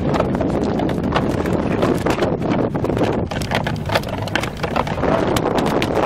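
Wind buffeting the microphone on an open boat at sea, a dense rushing noise broken by many irregular clicks and knocks.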